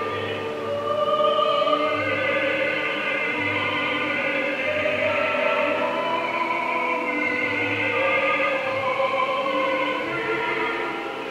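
Operatic choral singing with long held notes that waver slightly, several voices layered together.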